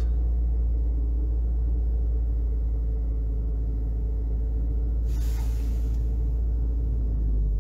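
Opel Zafira 1.8-litre four-cylinder petrol engine running steadily at a slightly raised idle while warming up, now sounding even after its cylinder-two misfire was dealt with. A brief hiss about five seconds in.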